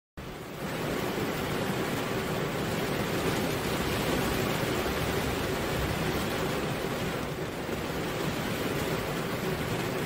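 Steady rain falling, an even hiss of drops without a break. It starts just after the beginning and swells to full level within about half a second.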